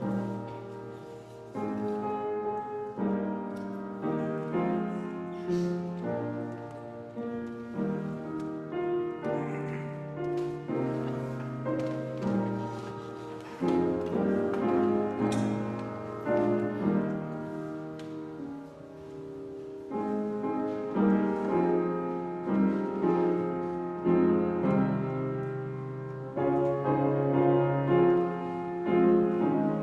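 Solo piano playing a slow, quiet piece, with a new chord or note about every second or two that rings and fades.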